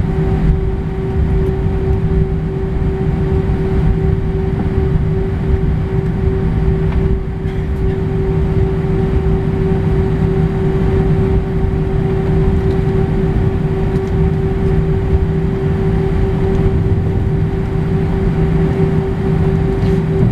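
Airbus A319 cabin noise while taxiing: the jet engines running at low power with a steady hum over a low rumble, heard from inside the cabin.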